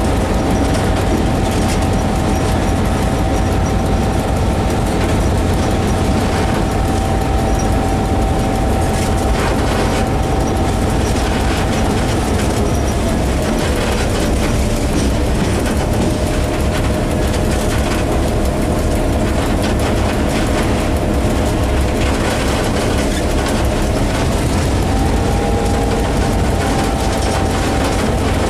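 Diesel locomotive running along the line, heard from its cab with the side window open: the engine's steady drone and the rumble of wheels on rails. A steady whine over it drops in pitch about halfway through and climbs back near the end.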